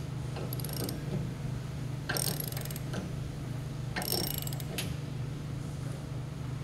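A ratchet wrench being cranked to apply twisting load to a steel door in a twist-test rig, with the load climbing past 800 pounds. Three short spells of quick ratcheting clicks come about one and a half to two seconds apart, over a steady low hum.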